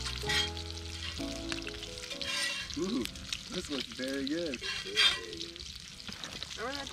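Bacon and pancakes frying on a cast-iron skillet and griddle over a wood campfire: a steady sizzle with a few sharp crackles, under background music.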